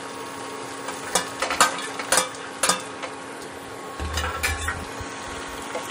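A spatula stirring a thick chicken-and-cashew mixture in a steel frying pan over a low sizzle, with several sharp knocks of the spatula and utensils against the metal pan.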